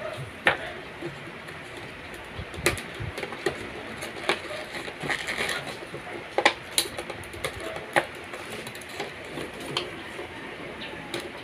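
Cardboard and plastic packaging of a wireless-earbud box being handled: irregular clicks, taps and light rustles as the box is opened and its plastic tray is handled, with sharper knocks about half a second in, near three seconds, and around six and a half and eight seconds.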